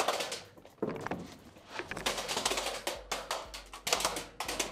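Airsoft electric guns firing on full auto in rapid bursts of sharp clicks: a short burst near the start and several more bursts in the second half.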